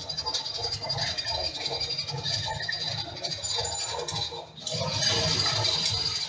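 Metal-turning lathe running, a steady high whine over a mechanical rattle, with a brief dip about four seconds in.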